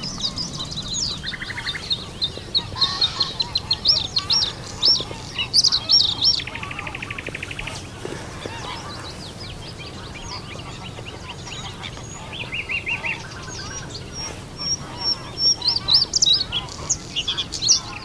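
Several songbirds singing at once, with quick high whistled and trilled phrases. A buzzy rattle comes in about six seconds in and a shorter one near the middle. The singing is loudest at the start and again near the end.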